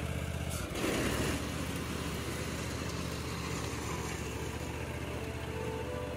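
Gravely zero-turn riding mower running steadily while mowing overgrown weeds, with a brief rush of noise about a second in.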